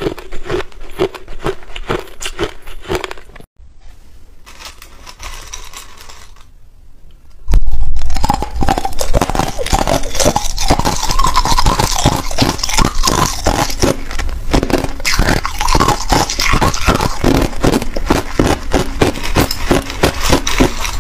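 Hard ice being bitten and chewed close to the mouth. At first there are slow, regular crunches about twice a second, then a few quieter seconds. About a third of the way in, loud, dense crunching of ice cubes starts and keeps on.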